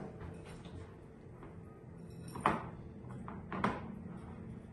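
Wire whisk stirring brownie batter in a bowl, with two sharp knocks about two and a half and three and a half seconds in.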